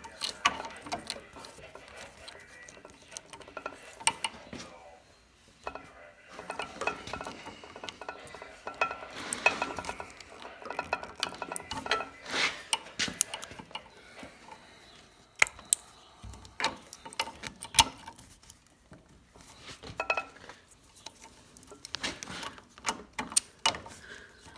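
Hydraulic hose quick couplers being handled and pushed onto a tractor's loader outlets: irregular metallic clicks, clinks and rattles, with busier spells of clatter. Trapped pressure in the lines makes the couplers hard to snap in.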